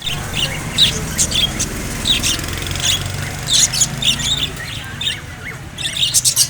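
Small birds chirping in short, high calls that come thicker near the end, over a steady low hum.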